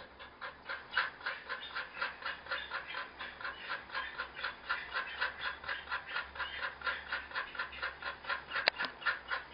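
A large dog panting rapidly and evenly, about five breaths a second. A single sharp click sounds near the end.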